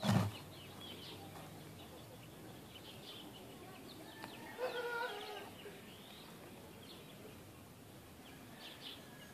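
A single rifle shot right at the start, a sharp crack with a short low thud. Birds chirp throughout, and about five seconds in there is a brief, lower-pitched call.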